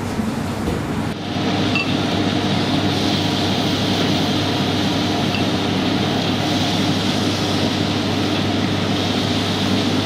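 Steady restaurant-kitchen noise from about a second in: the drone of extraction and ventilation with a low hum, mixed with the sizzle of beef steaks and tomato rings on the grill. A couple of faint ticks.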